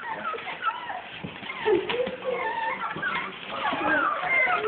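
A litter of seven-week-old English bulldog puppies whining and squealing together in many short, overlapping high cries, growing louder near the end.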